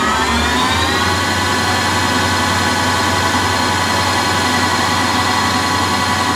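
A CNC lathe spindle spinning up: a whine that rises in pitch and levels off about a second in, then runs steadily at speed as the lathe turns a small brass part.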